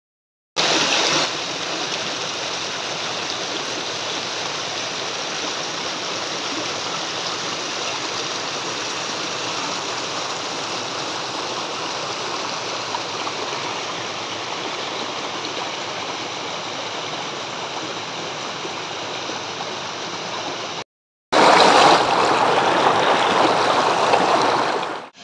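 Water of a small stream rushing and splashing as it cascades over rocks. Near the end the sound cuts out briefly, then returns louder.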